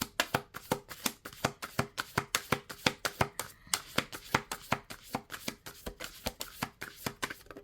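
A tarot deck being shuffled by hand: a quick, even run of card clicks and slaps, about six a second, that stops near the end.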